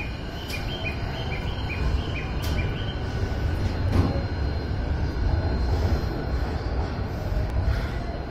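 Electric commuter train of the JR Chuo Line, an E233-series set, rumbling as it moves along the platform, the rumble building to its loudest about four seconds in. For the first three seconds a quick run of short high chime notes sounds over it.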